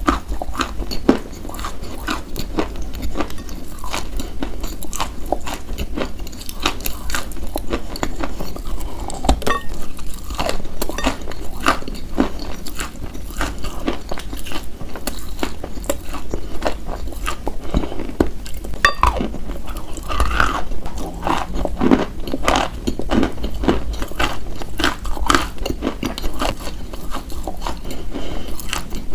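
Close-miked biting and chewing of edible clay or chalk: a continuous run of sharp, crumbly crunches.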